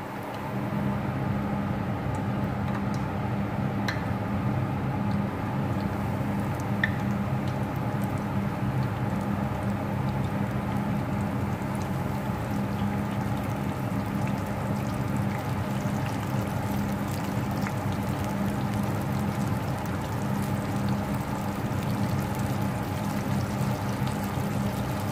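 Breaded chicken pieces deep-frying in hot oil: a steady sizzle and bubbling that swells about half a second in, with an occasional small pop.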